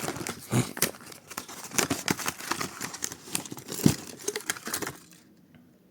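Diecast toy car packaging being torn open and crinkled by hand: a dense run of irregular crackles, rips and clicks that stops about five seconds in.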